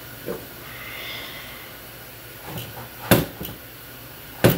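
Metal clunks and knocks as an ATV engine is shifted and tipped by hand inside its frame: a few light knocks, then two sharper clunks, one about three seconds in and one near the end.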